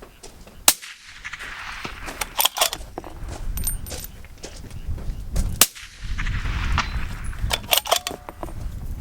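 Two suppressed rifle shots through a Dead Air Nomad suppressor, about five seconds apart. A couple of seconds after each shot comes a cluster of smaller sharp clicks, over a low rumble.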